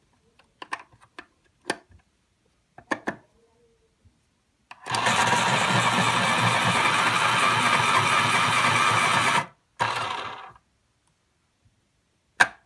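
Electric pencil sharpener's motor running and grinding a pencil steadily for about four and a half seconds, then a short second burst just after. A few light clicks come before it, and one sharp click near the end.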